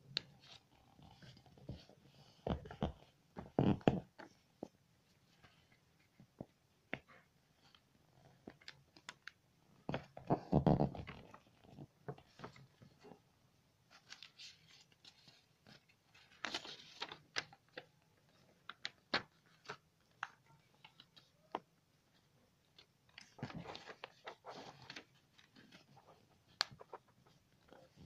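Sheet of paper rustling and crinkling as it is folded and its creases pressed flat by hand, with scattered small clicks and a few louder spells of crackling.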